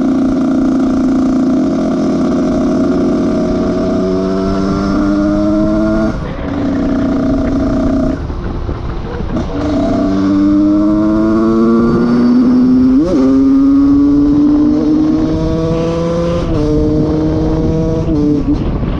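Husqvarna SM 125 two-stroke single with a handmade aftermarket silencer, under way: the engine holds a steady note, then its pitch climbs and drops back sharply again and again as it accelerates through the gears, with several gear changes.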